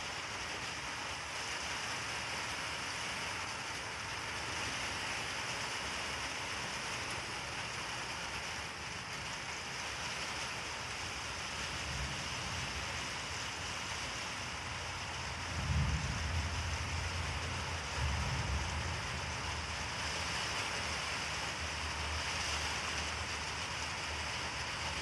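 Steady hiss of rain, with distant thunder rumbling low about halfway through, swelling twice in quick succession before fading.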